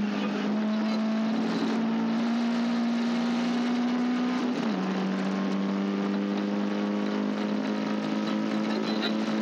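Caterham Seven race car engine at high revs under acceleration. Its pitch climbs slowly, drops sharply once about halfway through at an upshift, then holds nearly level.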